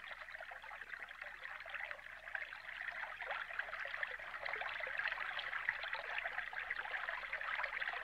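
River water flowing, a steady rush that grows gradually louder.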